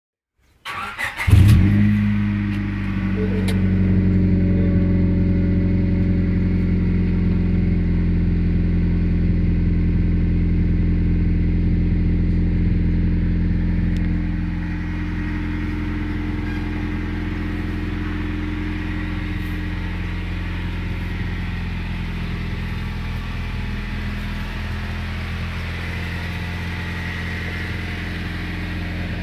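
Honda Civic EK3's 1.5-litre VTEC four-cylinder engine starting, heard at an aftermarket exhaust tip. It catches about a second in with a brief rev flare, then settles into a steady idle that gets a little quieter about halfway through.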